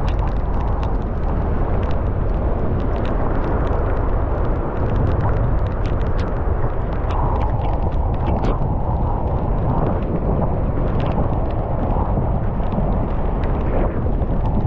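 Strong wind buffeting the microphone in a rainstorm, a steady low rumble, with scattered sharp ticks of raindrops striking the microphone.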